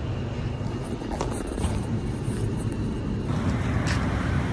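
Steady low rumble of a lift in motion. About three seconds in it gives way to outdoor street background with distant traffic.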